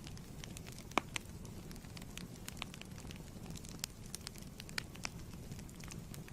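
Wood fire crackling in a fireplace: a steady low rumble of flames with irregular sharp pops and snaps, the loudest one about a second in.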